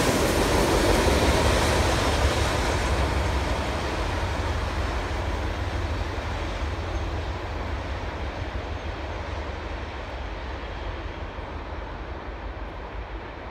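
CSX freight train's rear cars rolling past and receding, the rumble of wheels on rail fading steadily as the higher sounds die away first.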